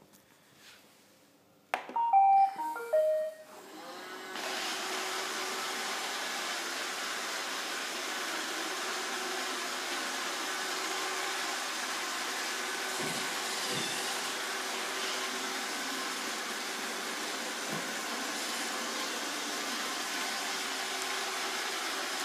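iRobot Roomba 780 robot vacuum plays its short stepped start-up tune of beeps about two seconds in, then its vacuum motor and brushes start and run steadily with a constant hum. A few soft knocks come near the middle.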